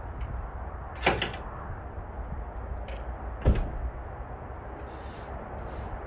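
A sharp clack about a second in, then a heavier, louder thump about two and a half seconds later, over a steady low background rumble.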